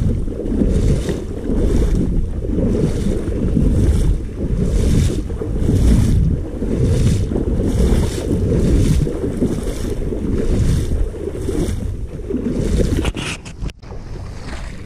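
Someone wading through shallow marsh water: a swishing splash about once a second, one per stride, over heavy wind rumble on the microphone. The sound dips sharply near the end and carries on a little quieter.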